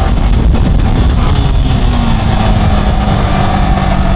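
Motorcycle engine running steadily while riding at speed, under heavy wind rumble on the microphone.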